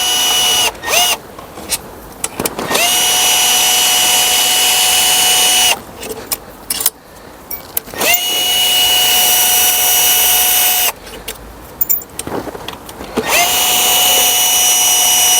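Power impact gun spinning out pre-loosened intake manifold bolts: three runs of about three seconds, each quickly rising to a steady whine, with short clicks of bolts and tool handling between them.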